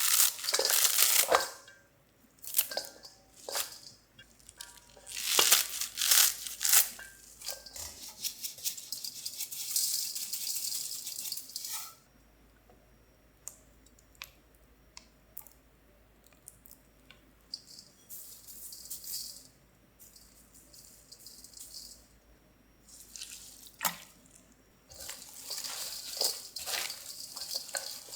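Seasoned chive salad being prepared by hand: irregular rustling and crinkling with scattered clicks and light wet handling sounds. It comes in bursts, busiest at the start and again near the end, with quiet pauses between.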